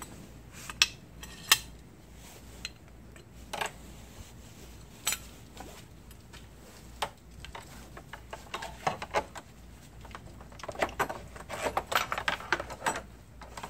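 Light metal clinks and taps from a battery hold-down bar and J-bolts being handled and hooked into the holes of a battery tray. A few scattered clicks at first, then many quick clinks in the last five seconds or so.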